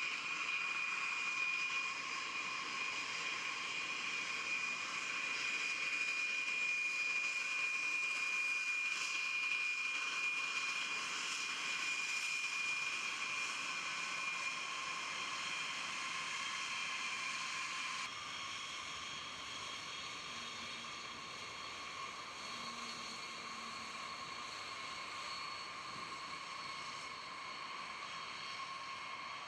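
Jet engines of a B-52H Stratofortress running with a steady high whine over a rushing noise. The sound drops slightly in level and changes tone about eighteen seconds in.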